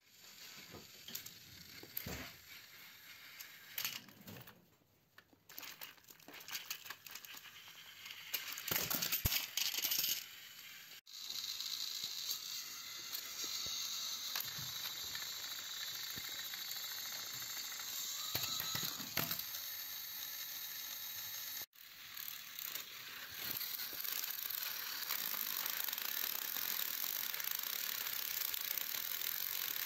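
Plastic clicks and clatter of toy trains being handled on plastic track, then a battery-powered toy train locomotive's motor and gears whirring steadily as it runs, with a brief break a little after twenty seconds.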